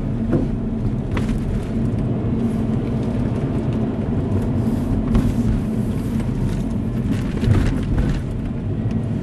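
Car engine and road noise heard from inside the cabin while driving: a steady low rumble, with a few brief clicks or knocks.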